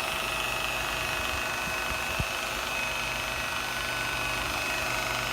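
Electric rotary buffer running with a steady whine as its pad works compound over a boat hull.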